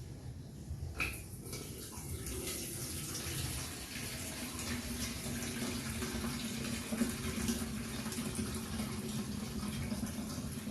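Water pouring into the water tank of a Xiaomi Mi 4L humidifier. It is a steady splashing pour that starts about a second in and keeps going.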